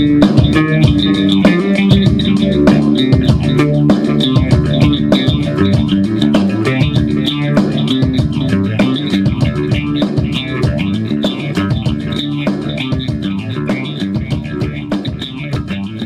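Outro music: a rock track led by bass and guitar with a steady beat.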